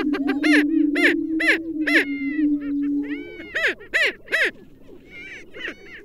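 Greater prairie-chickens displaying on a lek: a low, steady booming hum under sharp cackling calls, about two a second. The booming stops about three seconds in, and after a few more cackles the calls thin out.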